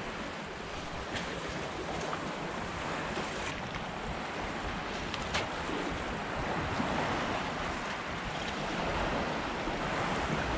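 Sea waves washing against a concrete breakwater: a steady wash of water noise, with a few faint clicks in the first half.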